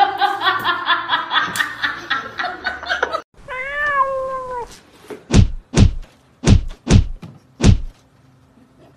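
A fast, rhythmic pitched sound cuts off about three seconds in. A cat then gives one long meow, falling in pitch at the end, and bats its paw at the glass front of a terrarium five times, each a sharp knock on the glass.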